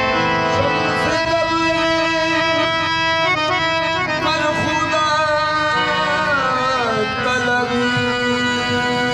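Harmonium playing held reed chords with tabla accompaniment, and a male singer whose voice slides down in a long phrase about two-thirds of the way through.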